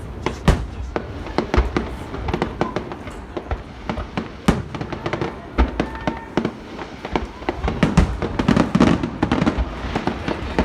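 Fireworks display in a dense barrage: many shells bursting in quick, irregular succession, a constant run of bangs and crackles.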